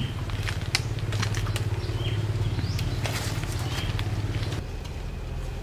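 A motor engine hums steadily, dropping a little lower near the end, under the crackle and snap of leaves and twigs as star apples are pulled from the branches. A few short high chirps come through now and then.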